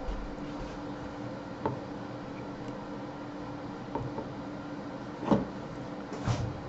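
A few light clicks and knocks spaced a second or more apart, the loudest about five seconds in, over a steady low hum.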